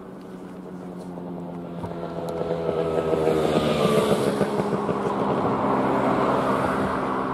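A motorcycle passes close by, its engine note swelling to a peak about halfway through and then dropping in pitch as it goes past. A steady low hum runs underneath.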